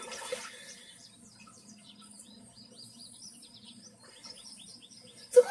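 Small birds chirping, a string of short, quick, high chirps repeated over and over, with one brief loud sound near the end.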